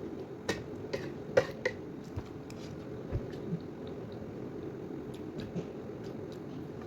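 A person eating a meal: chewing, with several sharp clicks in the first two seconds and a few fainter ones later, over a steady low hum.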